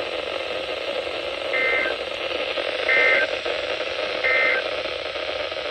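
Weather alert radio playing the three short data bursts of an Emergency Alert System (SAME) header over steady radio hiss. The bursts come a little over a second apart and mark the start of a Required Monthly Test alert.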